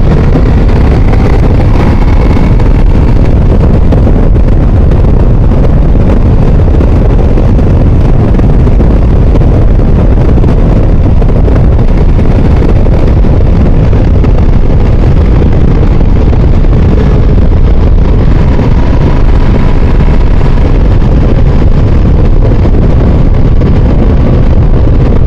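Ducati Multistrada V4S motorcycle under way, its V4 engine running steadily beneath heavy wind rush on the rider's microphone. The wind buffeting is the loudest part, a constant low rumble.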